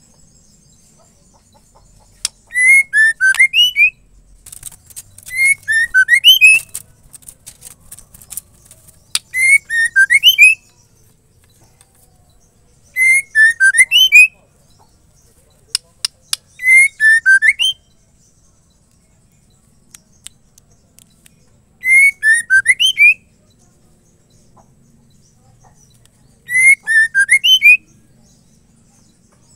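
Female white-rumped shama giving the same short whistled phrase seven times, a few seconds apart, each a quick run of rising and falling notes: the female's call to a male. A run of sharp clicks comes between the second and third phrases.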